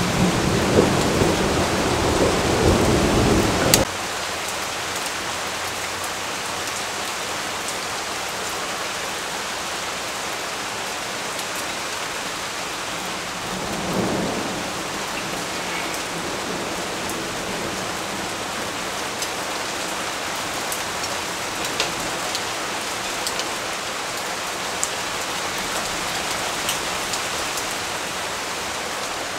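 Steady rain falling, with a low roll of thunder over the first few seconds that cuts off suddenly and a shorter low rumble about fourteen seconds in. Scattered sharp drip ticks sound through the rain.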